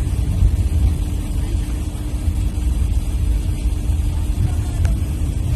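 Motor vehicle driving: a steady low rumble of engine and road noise with a constant drone.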